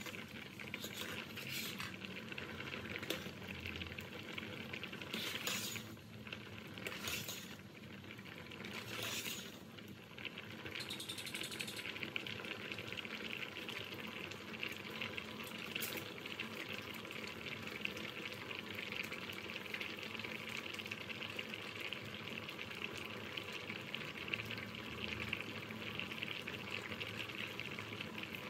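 Pot of sweet potato chunks in water at a steady bubbling boil. In roughly the first ten seconds a metal ladle stirs the pot, with a few sharp clinks against it.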